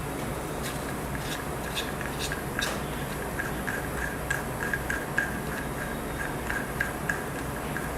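Plastic toy bolt being unscrewed by hand, its threads giving small irregular clicks, about two or three a second, over a steady low hum.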